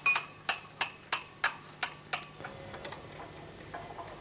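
Sharp, evenly spaced clicks, about three a second, like a clock ticking. They stop a little after two seconds in, leaving only fainter ticks over a steady low hum.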